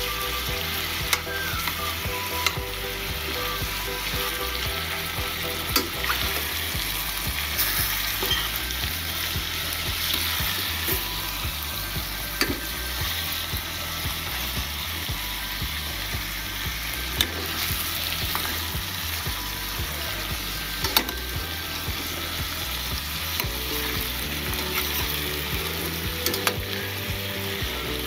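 Chunks of meat on the bone sizzling as they brown in a stainless-steel pot, turned now and then with a metal spatula that gives short clicks and scrapes against the pot.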